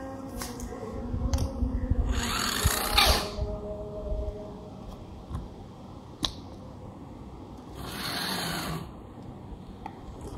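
Small electric drive motor and gears of a toy RC truck whirring in two bursts, about two seconds in and again near eight seconds; the first winds down in a falling whine. A few sharp clicks and knocks come in between.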